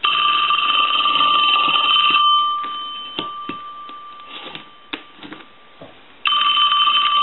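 Western Electric Princess telephone's bell ringing on a test set's ring cycle: the clapper rattles its single brass gong for about two seconds, then the ring dies away. A few light clicks and knocks follow as the ringer's loudness adjustment is handled, and the bell starts ringing again near the end.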